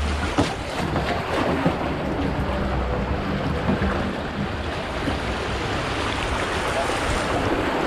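Steady rush of river water around a kayak, with wind buffeting the microphone and a few short splashes.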